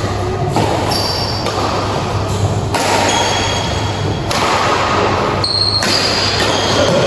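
Badminton rally in a large, echoing hall: rackets striking the shuttlecock and sports shoes squeaking briefly on the court floor, over a steady low hum.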